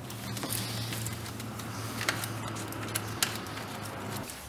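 A few sharp clicks and light handling noise as gloved hands work a catch at the distributor, over a steady low hum.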